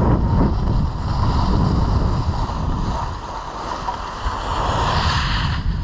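Wind buffeting the camera's microphone while riding downhill, mixed with the hiss of a snowboard sliding over groomed snow; the hiss grows louder about five seconds in.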